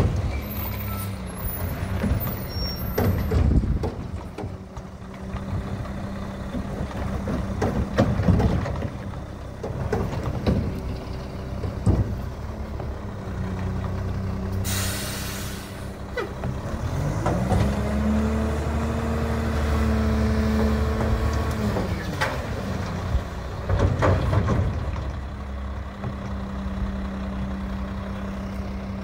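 Front-loading garbage truck's diesel engine idling, with a few sharp clanks and a short air-brake hiss about halfway. About two-thirds of the way through, the engine revs up, holds for a few seconds, then drops back to idle.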